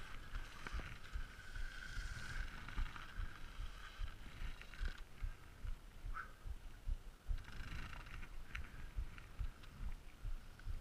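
Wind buffeting a helmet-mounted GoPro's microphone in an uneven, gusty rumble, with the hiss and scrape of skis sliding on snow.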